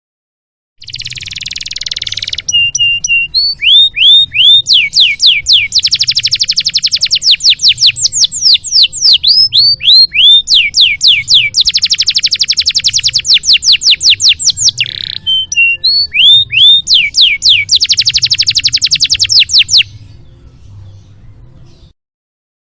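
Domestic canary singing a long, varied song: a harsh rasping note, then rapid trills and runs of repeated down-slurred whistles, changing tempo from phrase to phrase, over a faint low hum.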